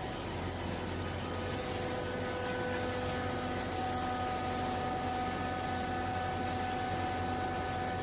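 Vertical hydraulic baler's electric motor and hydraulic pump running, driving the press plate down onto a load of used clothing: a steady hum and hiss, with a whine of several steady tones that comes in a few seconds in as the plate presses into the clothes.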